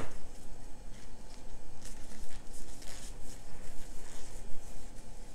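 Thick polyester cord rubbing and scraping as it is pulled through tight single crochet stitches with a plastic crochet hook: an irregular run of short scratchy rustles.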